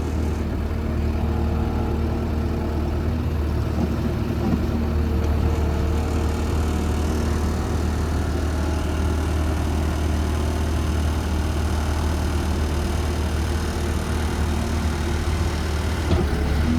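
Case SV300 skid steer loader's diesel engine running steadily with a deep, even hum. A short knock comes near the end.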